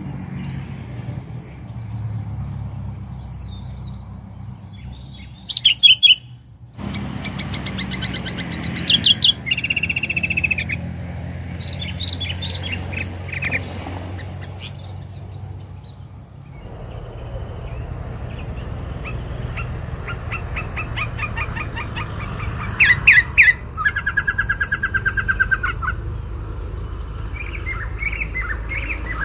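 Sooty-headed bulbuls calling: short whistled phrases and quick chattering trills, with the loudest harsh rattling bursts about five, nine and twenty-three seconds in. A thin steady high tone sounds behind them.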